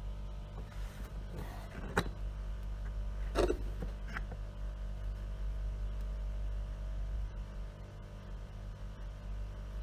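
Camera packaging being handled during an unboxing: a sharp click about two seconds in and a short crackling rustle about a second and a half later, over a steady low hum.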